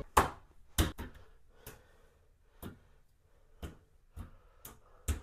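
A series of sharp, irregular knocks or taps, about nine in five seconds, each brief with a short fading ring, with near quiet between them.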